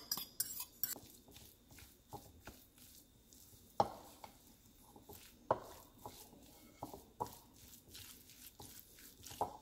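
A metal fork scraping and clinking against a ceramic bowl as canned tuna is scraped out, then a wooden spoon stirring flaked tuna in the bowl, with a few single knocks against the rim.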